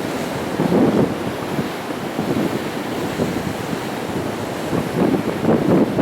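Sea waves breaking and washing against shoreline rocks, a steady rushing that surges louder about a second in and again near the end, with wind buffeting the microphone.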